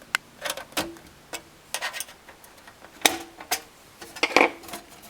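Small flat-blade screwdriver prying the soft sheet-metal top cover off a GM factory car radio: irregular metallic clicks and taps, a few with a brief ring, the sharpest about three seconds in.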